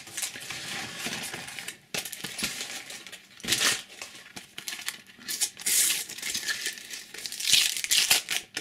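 A Panini sticker packet's wrapper crinkling and tearing in the hands as it is pulled from the box and ripped open, in irregular bursts of rustling that are loudest about three and a half, six and seven and a half seconds in.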